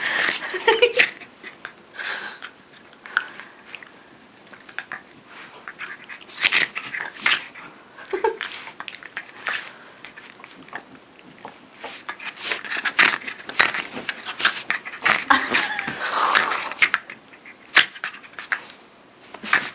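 Dogs roughhousing at close range with a person: irregular scuffling, sharp rustles and brief dog vocalizations in bursts, the sound of rough play-biting.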